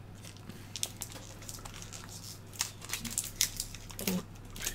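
Clear plastic packaging crinkling in the hands as a small webcam accessory is unwrapped, in scattered short crackles.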